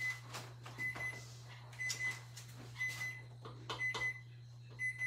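A kitchen appliance timer beeping, one short high beep about once a second, signalling that the cookies' baking time is up. A few light clicks and knocks of pans being handled come in between.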